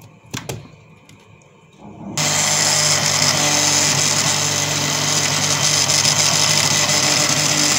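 An electric countertop blender is switched on about two seconds in, after a couple of clicks, and runs steadily at full speed. It is grinding a wet onion, yogurt and spice mix with fresh coriander leaves into a paste.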